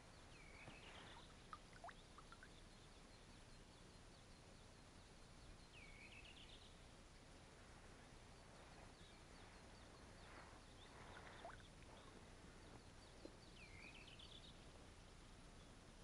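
Faint bird calling three times, about six seconds apart; each call is a quick run of notes that dips down and swings back up. A few soft water drips plink in between.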